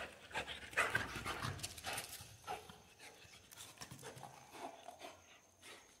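A dog panting in short irregular breaths, with light scuffs and taps as it moves about with its toy ball on concrete.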